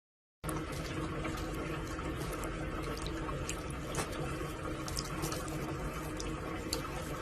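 Steady rush of running water, with small clicks and drips now and then.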